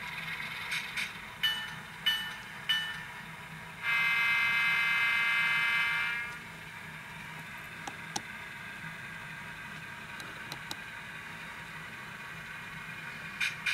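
HO-scale model diesel locomotive's Tsunami sound decoder, heard through the model's small speaker: three short horn toots, then one long horn blast of about two seconds. A steady engine hum runs underneath, with a few faint clicks later on.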